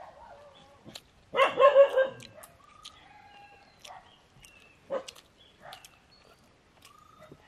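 A dog yelps once, briefly, about a second and a half in, with a few faint clicks around it.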